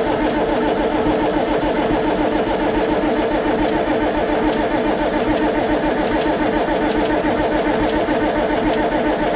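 Allis-Chalmers D17's six-cylinder diesel being cranked over steadily on its starter, with the injector lines cracked open to bleed air from the fuel system. The cranking is loud, with a fast, even pulsing.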